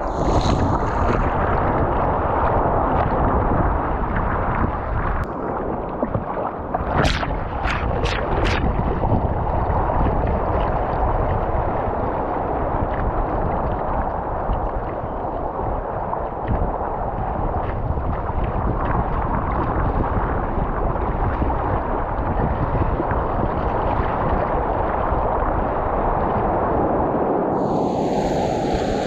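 Steady rushing of wind buffeting the microphone and water streaming past while surfing a wave, with four quick clicks about seven seconds in.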